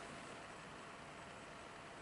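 Near silence: faint steady room hiss, with no distinct sound.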